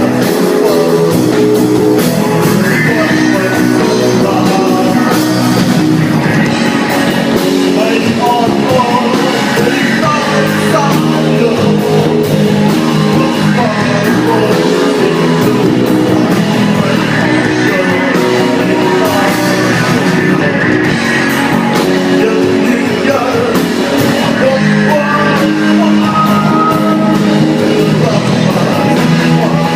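Rock band playing live: guitars with a singing voice over them, loud and steady.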